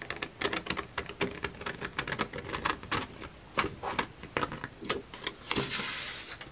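Scissors cutting around printed paper tags: a quick, irregular run of short, crisp snips, with a longer stretch of paper noise near the end.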